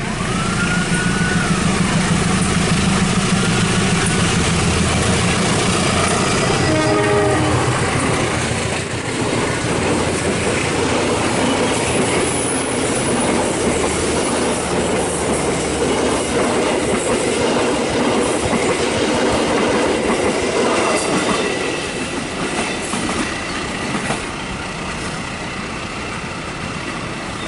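A diesel train passing close by. Its engine hums heavily at first, a short horn sounds about seven seconds in, and then the wheels clatter over the rail joints in a long loud rush that eases off after about twenty seconds.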